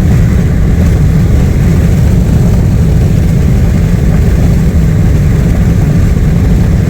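Steady low rumble of a car travelling at highway speed: road and wind noise.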